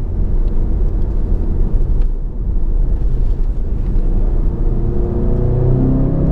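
Audi TT's 2.0 TFSI turbocharged four-cylinder engine and road rumble heard inside the cabin while driving. Near the end the engine climbs steadily in pitch as the car accelerates.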